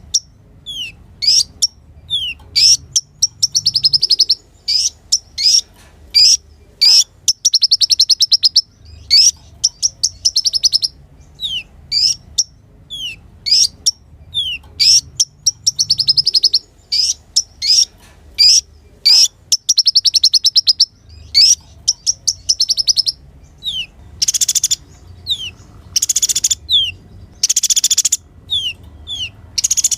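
Kolibri ninja sunbird singing: a fast, continuous run of high, sharp chirps and rapid trills, broken by quick downward-sliding notes.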